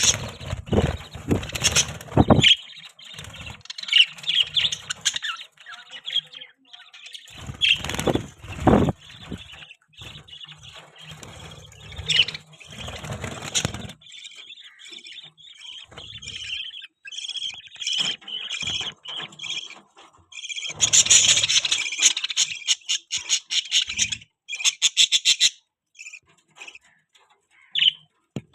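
Budgies chirping and chattering, with rapid trills and short squeaky calls in clusters and brief pauses between them. There is also some scuffling and thumps in the first few seconds and around eight seconds in.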